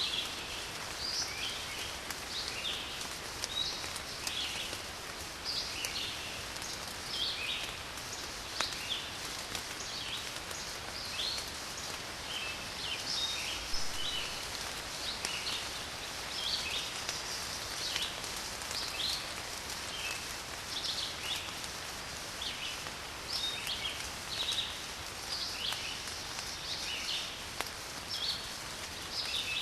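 Steady rain falling, with birds chirping throughout in many short, high calls.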